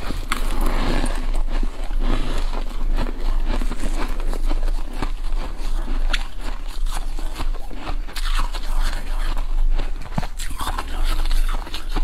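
Close-up biting and chewing of soft freezer frost: dense crunching with many sharp crackles, heaviest about the first two seconds, picked up close by a lapel microphone.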